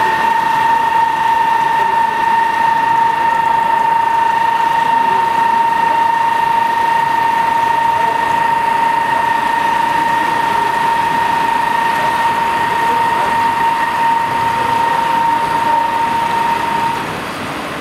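FERMAT WRF 150 CNC horizontal boring machine deep-boring a metal block with a U-drill: a loud, steady high-pitched cutting whine that creeps slightly higher in pitch, over the hiss of coolant spray. The whine stops about a second before the end, leaving the coolant hiss.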